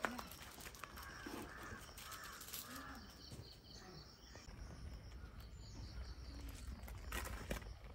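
Faint animal calls: a quick run of short calls between about one and three seconds in, with a brief rustle near the end.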